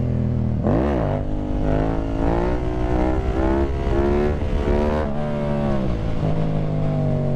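Yamaha FZ-09's inline three-cylinder engine heard from the rider's seat. Its revs go quickly up and back down about a second in, then rise and waver under throttle for several seconds, drop near the end and settle to a steady lower pitch.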